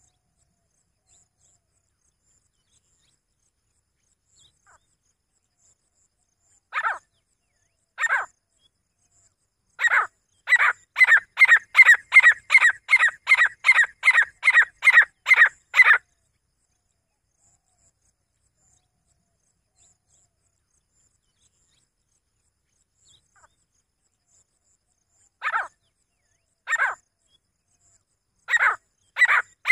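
Grey francolin calling: two loud single notes about a second apart, then a fast run of about fifteen repeated notes over some six seconds. After a long pause come two more single notes and another fast run beginning near the end.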